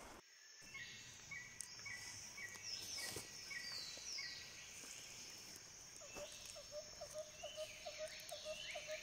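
Faint bird calls: a run of short, evenly spaced high notes in the first half, then a lower call repeated about three times a second through the second half, with a few soft rustles.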